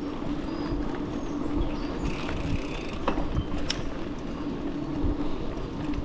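Outleap Vector mountain bike riding over a bumpy dirt trail: a steady hum over tyre rumble, with scattered clicks and rattles.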